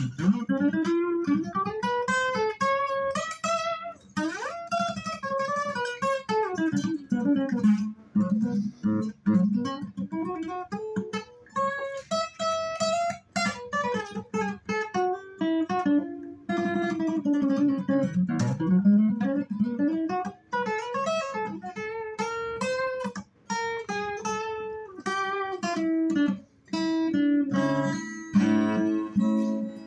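Acoustic guitar played solo, an instrumental line of notes and chords with short pauses between phrases.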